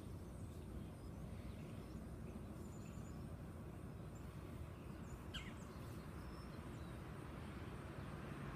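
Steady low outdoor background noise, with faint bird chirps, the clearest a single short chirp about five seconds in.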